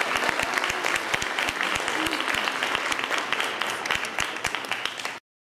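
Audience applauding, a dense patter of many hands clapping, which cuts off abruptly near the end.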